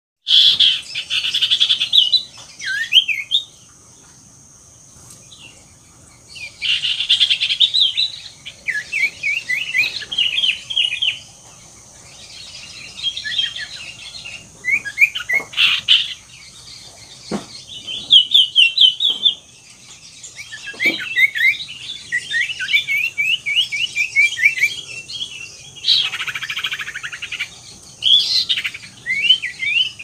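Caged iora (cipoh) singing vigorously: bursts of rapid chirps and trilled notes in phrases every few seconds, with short pauses between them. A few soft knocks come in the middle.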